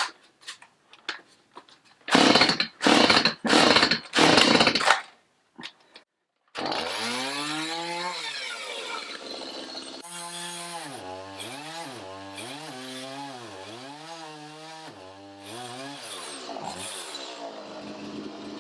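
Gas chainsaw pull-started with four yanks of the starter cord, then running. The engine pitch rises and falls about once a second as the dull chain cuts into clay soil.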